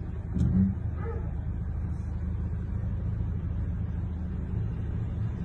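Steady low rumble of a running vehicle engine, with one short louder sound about half a second in.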